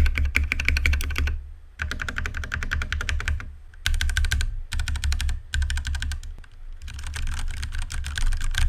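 Ducky One 2 Mini mechanical keyboard with Cherry MX Red linear switches and HyperX Pudding double-shot PBT keycaps being typed on fast. It gives a dense stream of key clacks, broken by several brief pauses.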